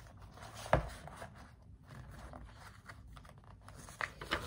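Pages of a picture book being turned and handled: paper rustling, with one sharp knock a little under a second in and a few smaller taps near the end.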